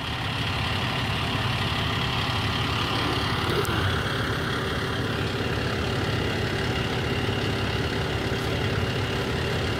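Fire engine's diesel engine idling steadily.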